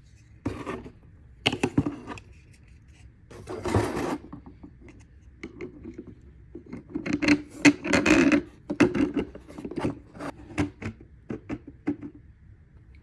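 Small hardware being handled on a 3D-printed plastic jig: irregular clicks, clacks and short rubbing and scraping sounds as nuts and screws are fitted, busiest about two thirds of the way through.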